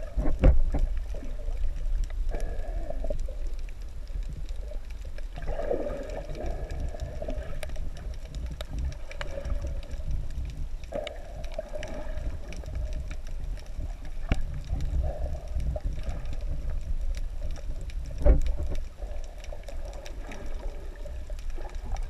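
Muffled underwater sound picked up by an action camera in its waterproof housing: a steady low rumble of moving water, with recurring muffled swells and a few sharp knocks, the loudest about half a second in and again near the end.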